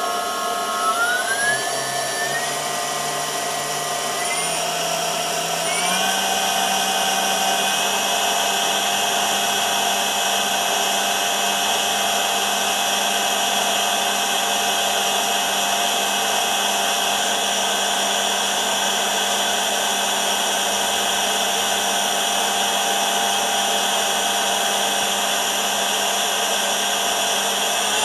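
CNC spindle motor run from a Bosch Rexroth EFC 5610 variable-frequency drive, its electric whine rising in a few steps over the first six seconds as the drive frequency is raised. It then runs steadily at a 200 Hz drive frequency, about 12,000 rpm, and starts climbing again at the very end.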